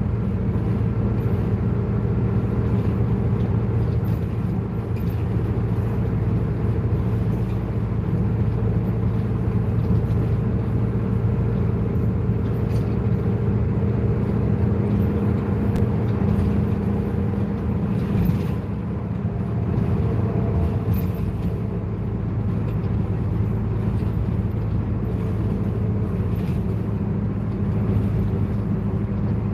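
Bus engine and road noise heard inside the cabin while driving: a steady low drone with a constant pitch and a light rattle of small clicks.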